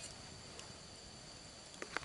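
Campfire burning quietly, with a few sharp crackles near the end, over a steady faint hiss and thin high tone.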